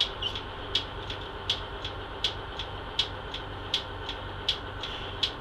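Transit bus's diesel engine running with a low, steady hum, heard from the driver's seat, with a sharp tick about every three-quarters of a second.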